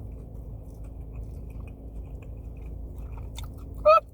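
Close-up chewing of fried food in the mouth, with small wet clicks, over a steady low hum. Near the end comes a short, high-pitched vocal 'mm', the loudest sound.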